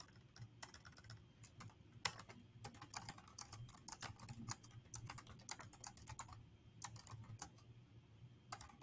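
Typing on a computer keyboard: faint, irregular key clicks with a few short pauses.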